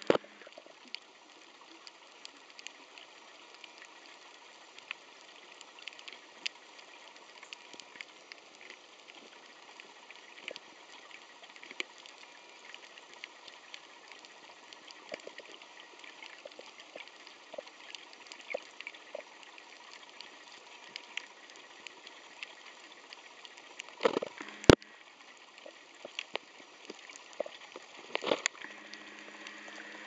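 Underwater ambience on a shallow coral reef: a steady faint hiss full of scattered small clicks and crackles, with a few louder knocks late on.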